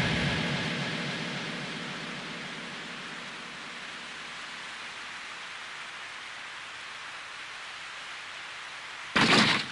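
Steady hiss of heavy rain, fading down over the first few seconds and then holding even. About nine seconds in, a sudden loud burst of noise cuts in briefly.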